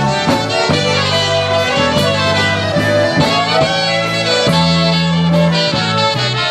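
Live band playing the instrumental opening of a waltz: accordion, trumpet and saxophone carry the melody over long held bass notes, with a regular beat.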